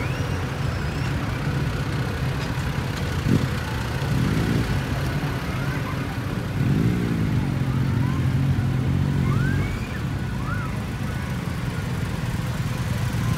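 Vehicles in a slow convoy driving past, their engines running steadily, with an engine revving up about four seconds in and again, more strongly, about seven seconds in.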